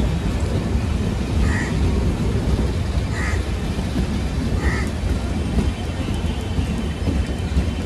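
Indian Railways passenger coaches rolling past on the track, a loud steady low rumble. A short high note sounds about every one and a half seconds through it.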